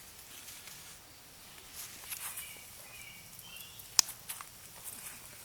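Quiet woodland sounds: light rustling and movement, a few faint short bird chirps a little past the middle, and one sharp click about four seconds in.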